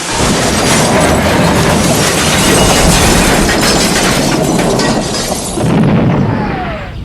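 Dubbed train-crash sound effect: a long, loud, dense din of crashing and breaking with many sharp clatters, easing off near the end.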